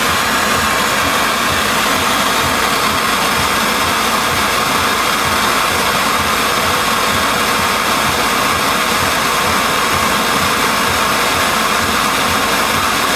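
Gas torch burning with a steady, loud hiss as its blue flame heats a thermocouple tip.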